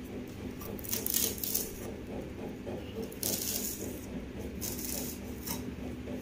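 Kitchen knife cutting hibiscus leaves into small pieces against the tabletop: a few short scraping cuts, over a steady low hum.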